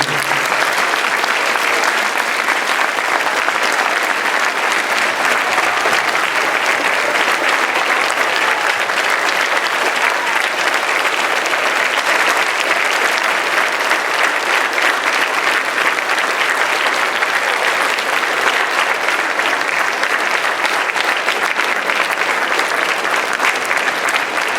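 Large crowd, a school gym or auditorium audience, applauding steadily and at length for the veterans in a big reverberant hall.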